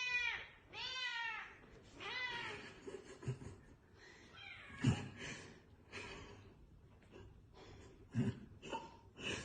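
A cat meowing: three drawn-out meows one after another in the first few seconds, then quieter scattered knocks and rustling.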